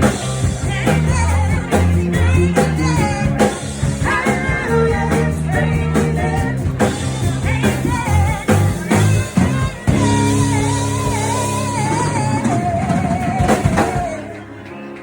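Live band performance with a female lead vocal over drum kit and electric guitar. Past the middle the music settles into a long held, wavering note over a sustained chord, then the sound drops away near the end.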